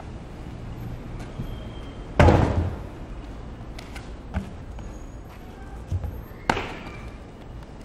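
A large tractor tire tipped over and landing flat on concrete with a heavy thud about two seconds in. Lighter thumps of feet jumping on and off the tire follow, then a sharp slap of feet landing near the end.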